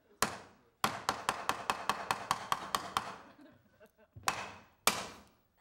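Sharp smacks: one, then a fast run of a dozen or so at about six a second, then two more near the end.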